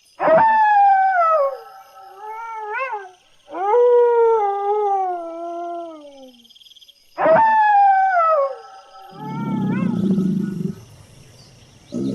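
An animal calling: three long, pitched cries that fall in pitch, then a low, rough growl about nine seconds in.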